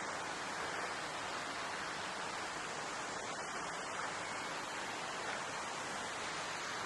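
Steady rush of water pouring through the open paddles of a canal lock as the lock chamber empties.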